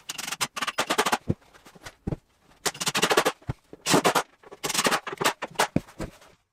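Cordless impact driver driving screws into wooden panels, in about five short bursts of rapid hammering impacts, with a few single knocks between them.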